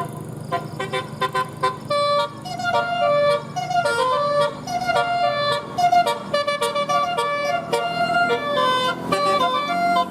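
Bus telolet horn, a multi-tone air horn, playing a fast melody of short staccato notes mixed with a few longer held notes.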